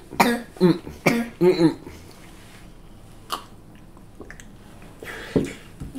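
A man coughing: four harsh voiced coughs in quick succession in the first two seconds, then a single shorter cough near the end.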